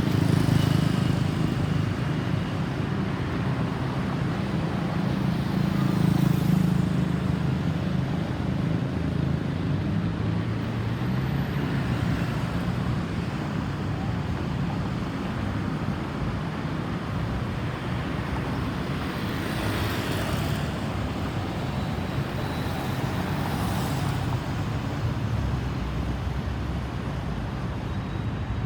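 Road traffic: vehicles driving past with engine and tyre noise, a steady low rumble that is loudest near the start and again about six seconds in.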